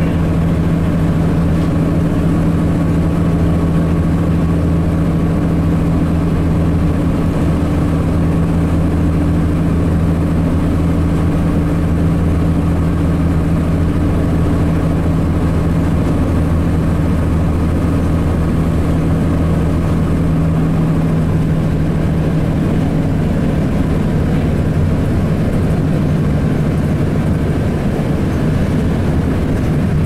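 Cummins ISC diesel engine of a 2002 Blue Bird CS transit bus running at highway speed, heard from inside the cabin as a steady low drone with road noise. The engine note eases slightly lower in the last third.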